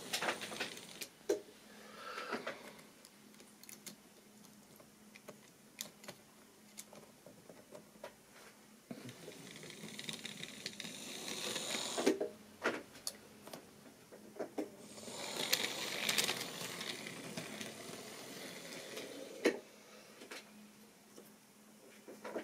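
A model railway train running on the track: a small electric motor whirrs and the wheels click over rail joints. The whirr swells twice as the train comes near.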